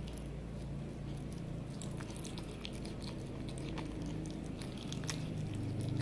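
Cat eating raw chicken breast from a plate: irregular chewing clicks and smacks, coming more often after the first couple of seconds, over a steady low hum.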